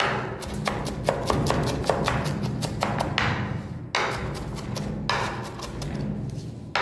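Chef's knife rapidly chopping cabbage on a wooden cutting board: quick sharp knocks, several a second, with music underneath.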